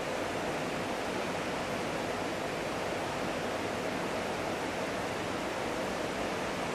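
Steady, even city street background noise, an unbroken rushing hum with no distinct events.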